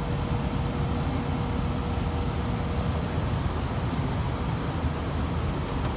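V10 engine idling steadily, with a misfire from a bad ignition coil on cylinder 1.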